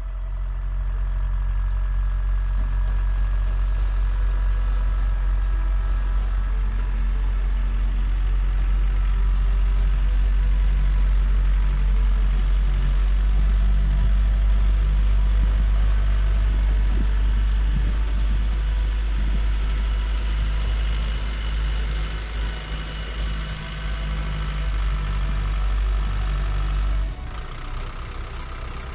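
Diesel engine of an all-terrain vehicle (a 2.4-litre turbodiesel) running with a steady, loud low rumble, which drops in level near the end.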